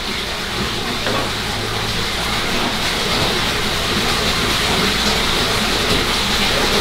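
Steady, even rush of running water at a fish-cleaning table, likely from the station's hose or tap, holding level throughout with a hissing edge.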